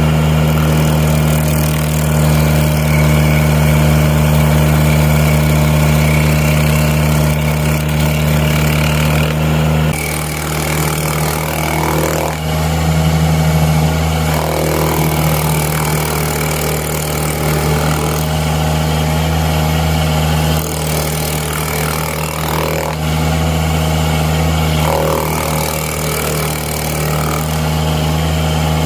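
Tobroco Giant SK252 mini loader's engine running steadily while it drives a Klou stump grinder. Its note shifts about ten seconds in, and several short whines rise and fall after that.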